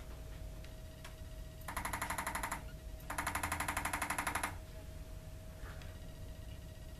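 Hand-held chiropractic adjusting instrument firing two rapid trains of taps, about ten a second: one of about a second, then, after a short pause, one of about a second and a half. Each run is a series of quick adjusting thrusts delivered to the patient's spine.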